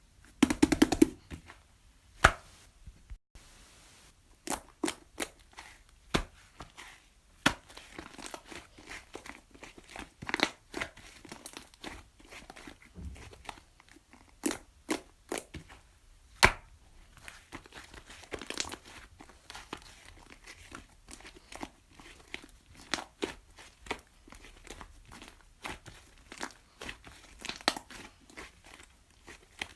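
Chocolate mixed slime being handled: irregular crackling, tearing and sharp clicking pops as it is pressed, stretched and folded, with a dense burst of pops about a second in.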